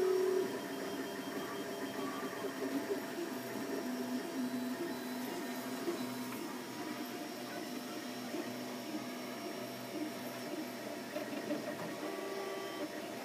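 FlashForge 3D printer printing: its stepper motors whine in short tones that keep changing pitch as the print head shuttles back and forth, over the steady hum of its cooling fans.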